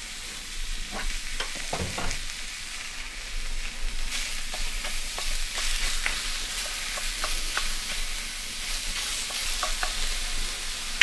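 Ground venison and pork-belly fat sizzling in a hot cast iron skillet, with scattered light clicks over the steady sizzle.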